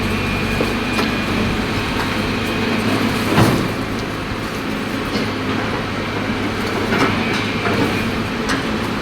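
Caterpillar excavator's diesel engine running steadily, with scattered knocks and crunches as it breaks up concrete; the loudest knock comes about three and a half seconds in.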